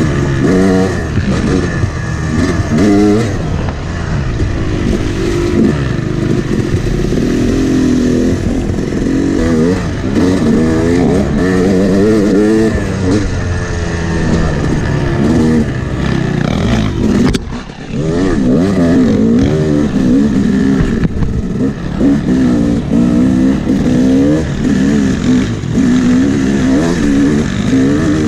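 Yamaha YZ250X two-stroke dirt bike engine being ridden hard on a trail, revving up and dropping back over and over as the throttle is worked. About two-thirds of the way through the engine briefly drops off before picking up again.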